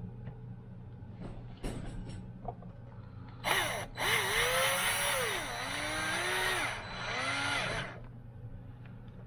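Small cordless drill driving a screw into a plastic case: a short burst about three and a half seconds in, then about four seconds of motor whine whose pitch sags and rises as the screw goes in. A few light clicks come before it.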